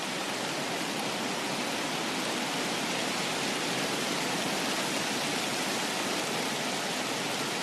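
Steady rain-and-wind ambience: an even, unbroken rushing hiss of rain and running water with wind.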